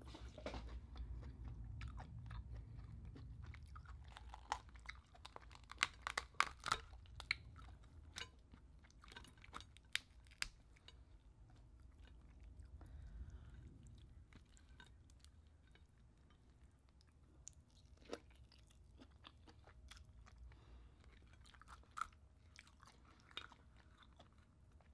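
A person chewing lobster meat, with sharp clicks and cracks as the cooked lobster's shell is pulled apart by hand; the clicks come thickest about four to seven seconds in, then singly.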